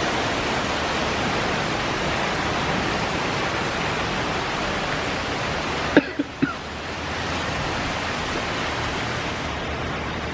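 Steady rain falling, a constant hiss of rainfall on the yard and roof. About six seconds in there are three short, sharp knocks.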